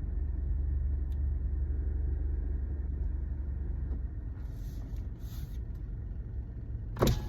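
Car engine running with a steady low rumble, heard from inside the car, with a single sharp loud knock near the end.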